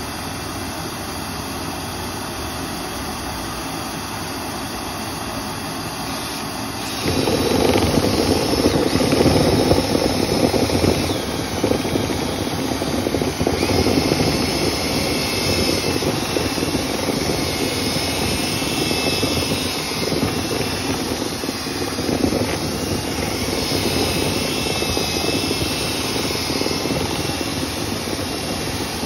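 Motorised dryer-vent cleaning equipment running steadily. It gets louder about seven seconds in, with faint high whistling tones coming and going after that.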